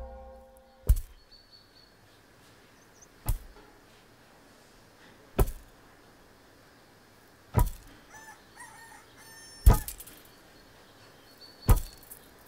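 A heavy wooden pestle pounding grain in a mortar: single sharp thuds, evenly spaced about every two seconds. A rooster crows faintly and small birds chirp in the background about two-thirds of the way through.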